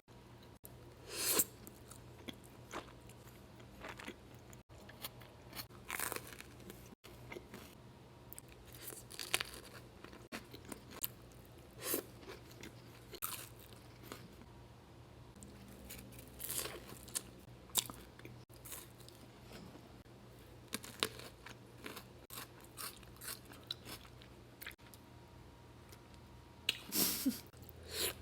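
Close-up eating sounds: crunchy snack-plate food being bitten and chewed, in irregular crisp crunches with quieter chewing between them.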